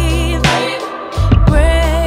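A song playing as background music: a singer holding wavering notes over deep bass.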